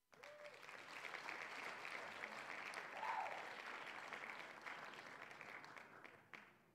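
Faint recorded audience applause. It swells over the first few seconds, is strongest about halfway through, then fades and stops shortly before the end.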